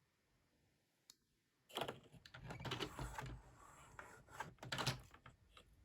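A run of irregular light clicks and knocks with some rustling, starting about two seconds in after a single faint click.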